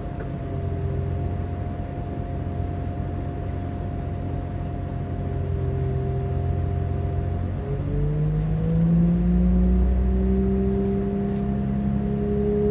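Underfloor diesel engine of a Class 180 train, a Cummins QSK19, heard from inside the carriage: steady running with a constant whine, then about eight seconds in the engine revs rise with a climbing pitch as power is applied.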